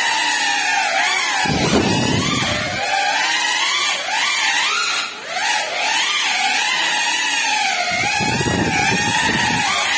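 Small ducted FPV quadcopter's (Geprc Cinelog 35) brushless motors and propellers whining, the pitch wavering up and down as the throttle changes. Low rushing air about a second and a half in and again near the end.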